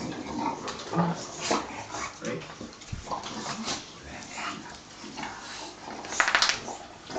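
English bulldogs play-fighting, making short, irregular dog vocal sounds, with a louder, harsher burst about six seconds in.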